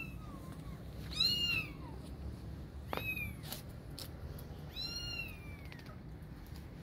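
A cat meowing, about four high-pitched, arching meows, the loudest about a second in.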